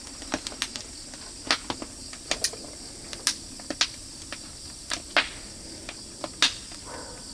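Oak firewood fire crackling, with irregular sharp pops and snaps. A steady high insect drone runs underneath.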